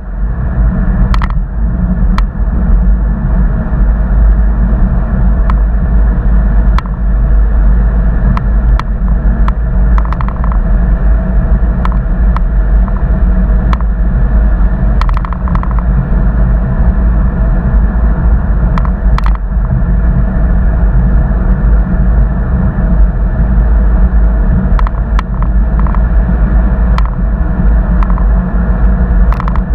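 Steady low rumble of a car in motion, broken by sharp, irregular ticks about once a second: the ticking interference a GoPro Hero 4 Black records when its wifi is switched on.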